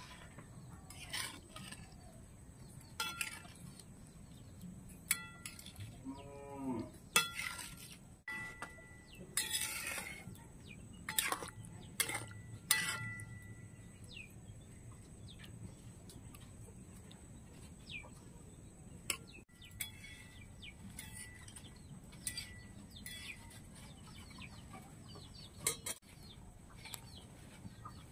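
Steel spatula clinking and scraping against a metal karahi of curry as it is stirred, some knocks ringing briefly. The clinks are closely spaced through the first half and thin out to a few isolated taps later.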